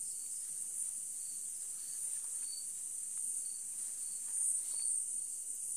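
Night insects: crickets trilling steadily at a high pitch, with shorter chirps recurring at a somewhat lower pitch.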